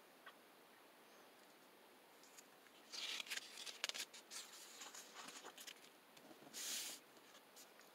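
A paperback picture book's page being turned by hand: soft paper rustles and light clicks about three seconds in, then a short swish of a hand sliding across the paper as the new spread is pressed flat. The sound is faint.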